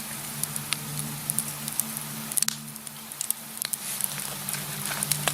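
Campfire crackling and popping in irregular small snaps over a faint steady low hum.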